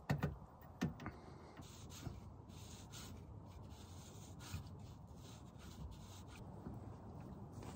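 A few quick light knocks in the first second, then faint, intermittent rubbing and scraping.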